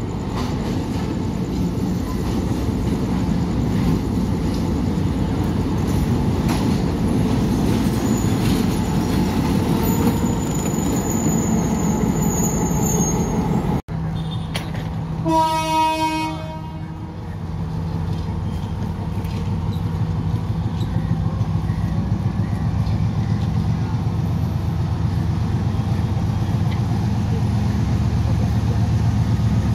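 Two diesel locomotives, M6 783 and M5B 768, double-heading a long passenger train: the train running into the station, then a single horn blast of about a second and a half about halfway through. After it the locomotive engines run steadily and grow louder as the train starts to pull away.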